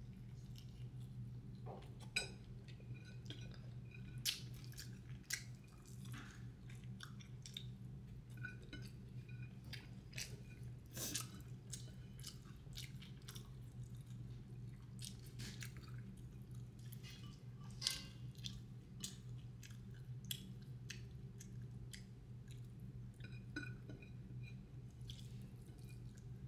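Close-up chewing and mouth sounds of someone eating fried eggplant and meat: wet smacks, soft crunches and scattered clicks, over a steady low hum.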